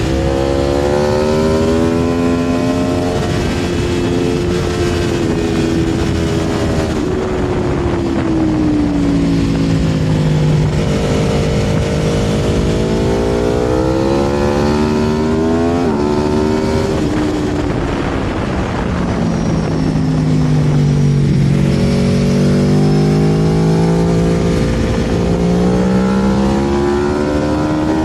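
Aprilia Tuono V4's V4 engine heard onboard at speed, its pitch rising under hard acceleration, stepping down suddenly at upshifts and falling away on the brakes into corners, several times over. A steady rush of wind runs under it.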